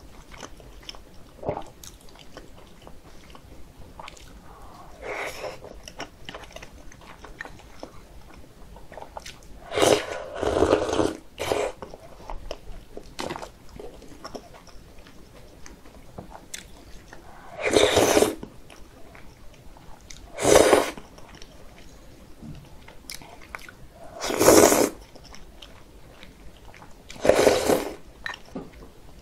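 Close-miked eating sounds of thick, cold soybean-milk noodle soup (kongguksu) and dumplings: quiet chewing throughout. About five loud slurps of the noodles and soup break in, the longest about ten seconds in.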